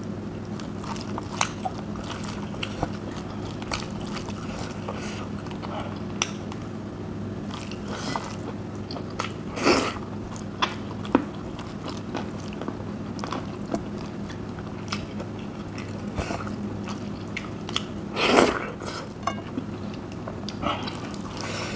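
Close-miked mouth sounds of a person eating rice and curry by hand: steady chewing with many small smacks and clicks, and two louder mouth noises about ten and eighteen seconds in. A steady low hum runs underneath.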